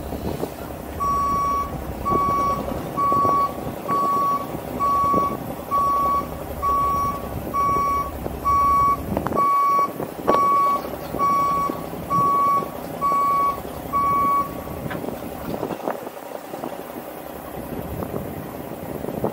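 A truck's backup alarm beeping about once a second, fifteen beeps in all, then stopping, over a truck engine running.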